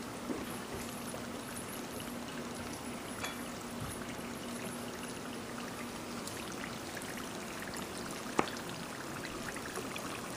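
Egg rolls deep-frying in a wok of hot oil, a steady sizzle as they are turned with tongs. One sharp tap about eight seconds in.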